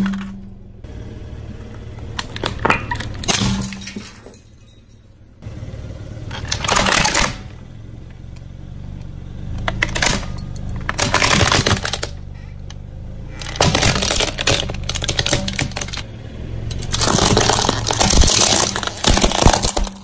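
Objects crushed under a car's tyres: several bursts of crunching and cracking a few seconds apart, over a steady low hum.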